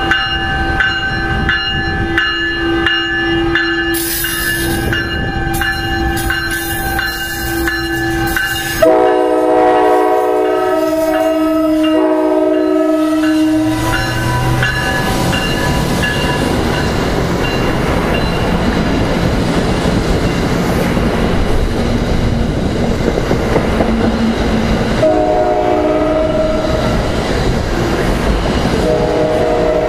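NJ Transit electric train moving through a station with its multi-note horn: a loud horn chord starts about nine seconds in and holds for about five seconds, and two shorter horn blasts come near the end. Before the first horn there is a steady ringing tone. The rumble and clatter of the moving train run throughout.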